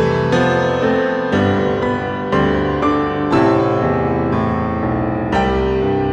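Background music played on piano, with chords struck about once a second.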